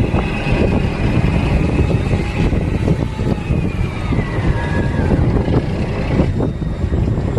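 Fishing boat under way: its engine running steadily with a constant rush of water and wind noise.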